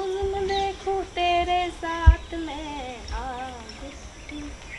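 A woman singing a melody unaccompanied, holding long wavering notes and trailing off after about three and a half seconds. A single low thump about two seconds in.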